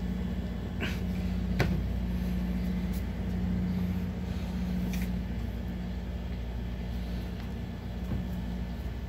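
A steady low mechanical hum, with a few light taps about one second in, again half a second later, and about five seconds in.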